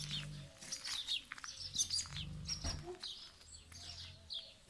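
Small birds chirping in quick, high calls throughout, over a dog's low, steady growl that stops about half a second in and comes back for about two seconds later on.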